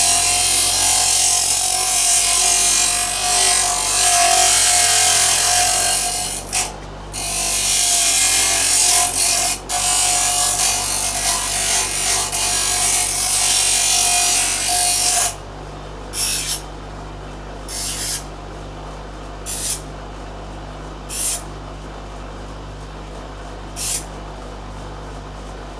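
Power grinder grinding metal: a continuous whine for about fifteen seconds, with two brief breaks, then a series of short touches. It is rounding off the corners and sharp edges of a sheet-metal blanking plate.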